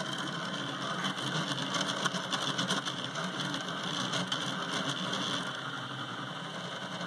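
RostockNano delta 3D printer running a print: its stepper motors whir and buzz steadily as the print head moves.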